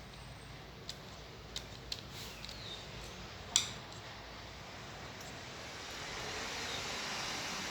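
Small clicks and handling noises as laptop parts are worked on by hand, with one sharper click about three and a half seconds in and a soft scraping hiss building near the end.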